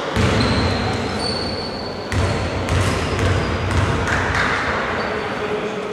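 Basketball game in an echoing gym hall: a ball bouncing on the court, with a few brief high squeaks over steady hall noise.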